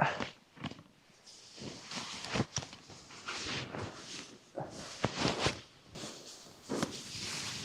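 Footsteps crunching through deep fresh snow, an irregular run of steps.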